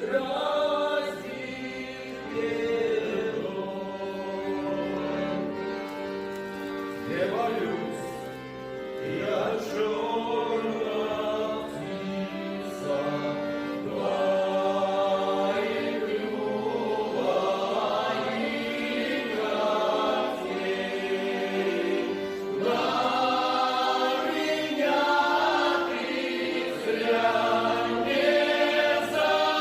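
Folk vocal ensemble singing a song with many voices in several parts, the pitches sliding between notes.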